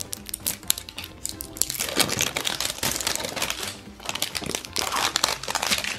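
A plastic surprise egg being opened, clicking at first, then plastic candy wrappers crinkling from about two seconds in as the packets inside are handled. Light background music plays under it.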